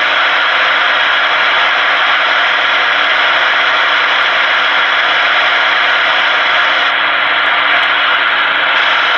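Stryker SR-955HPC CB radio's speaker giving a loud, steady hiss of static while it receives on channel 19, awaiting a reply to a radio check.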